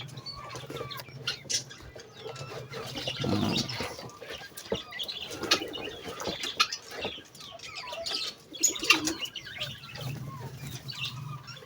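A chicken flapping its wings and scuffling in short bouts, with scattered bird chirps around it.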